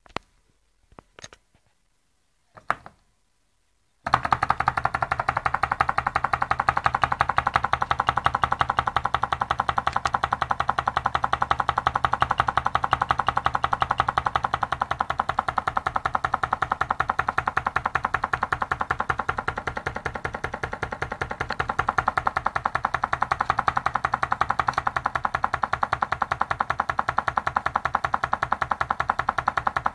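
Homemade candle-heated Stirling engine: a few light clicks, then about four seconds in it starts running with a fast, steady mechanical clatter that keeps an even beat.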